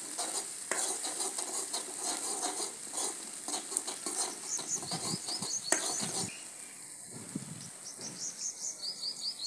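A metal spoon stirring and scraping spices sizzling in oil in a kadhai for about six seconds, then the stirring stops. A bird chirps in quick runs near the end.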